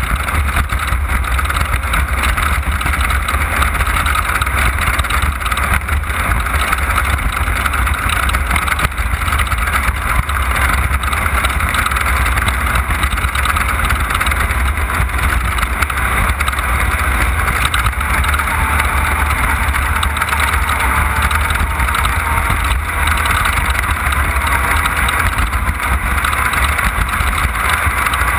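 Off-road race vehicle's engine running steadily under way, heard from onboard, with heavy low-pitched noise and no marked revving changes.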